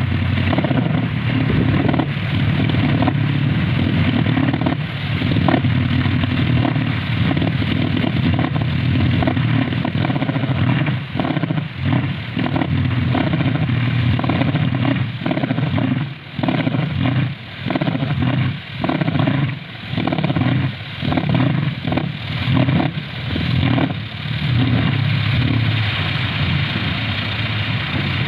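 Large kolecer wind propeller spinning in the wind, giving a loud, steady, low whirring drone like a distant motorcycle. Partway through, the drone begins to pulse, dipping and swelling about once a second for a while before evening out again near the end.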